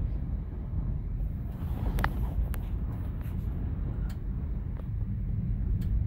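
Strong wind gusting at around 70 mph, a heavy steady low rumble, with a few sharp ticks scattered through it.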